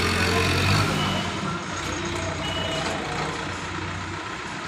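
Diesel engine of an ACE mobile crane running under load as it hauls a wrecked truck cab, its hum easing off about a second in. Two short high beeps sound over it.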